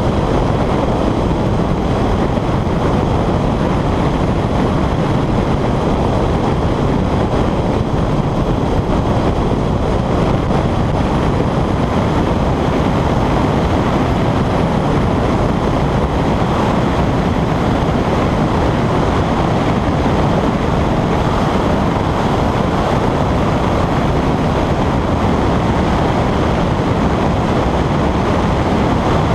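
Honda CR-X driven hard at speed, heard as a steady rush of wind and road noise on the car-mounted camera's microphone, with no clear engine note or gear changes standing out.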